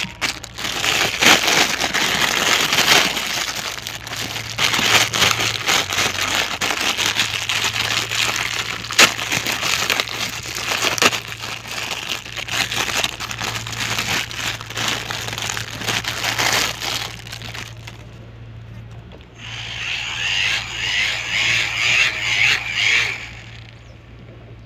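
Thin clear plastic packaging crinkling and crackling as it is pulled open by hand to free a small toy fan. The crinkling is dense and loud, dies down about 17 seconds in, and returns as a softer rustle for a few seconds near the end.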